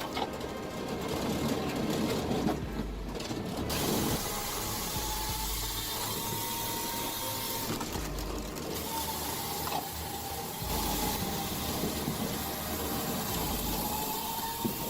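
Firewood processor at work: steady mechanical clatter with a thin high whine that comes and goes.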